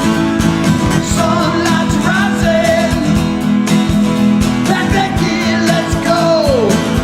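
Background music: a song with a singing voice and guitar over a steady beat.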